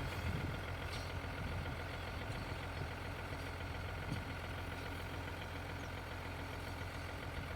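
Large engine idling steadily, a low even hum.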